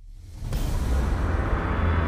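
Background music: a new piece fades in over about half a second and settles into a steady low drone.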